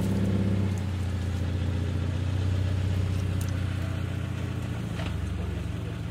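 Subaru BRZ's flat-four boxer engine running steadily at low revs, its pitch easing slightly about a second in.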